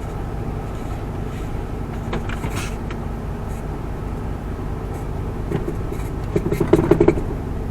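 Truck cab interior on the move: steady engine and road drone. Near the end there is a short cluster of hard knocks and creaks from the steering column, the sign of play that has developed in the column.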